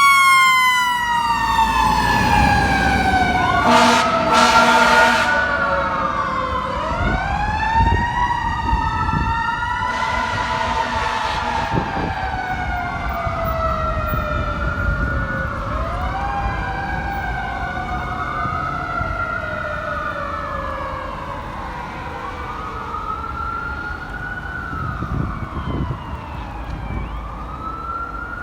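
Fire truck sirens: a Federal Q2B mechanical siren slowly winding down in pitch while an electronic siren wails over it in repeated rise-and-fall cycles, every two to three seconds. A blast of the air horn comes about four seconds in, and the whole sound gradually fades.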